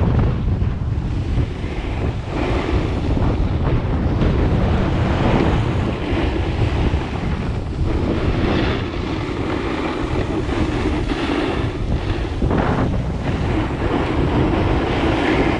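Wind buffeting a GoPro's microphone while sliding downhill at about 15 mph, with the hiss and scrape of edges carving across packed snow rising and falling through the turns.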